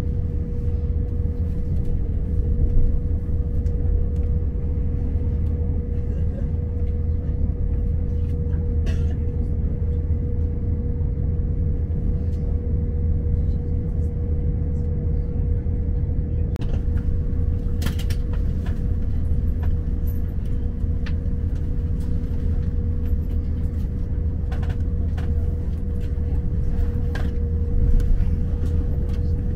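Inside a diesel multiple-unit train running along the line: a steady low rumble with a constant droning tone, and now and then short clicks and knocks from the wheels on the track.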